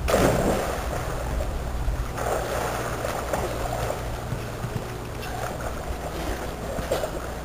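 A person splashing into a backyard above-ground pool, a loud sudden splash followed by water sloshing and churning, with a second surge of splashing about two seconds in.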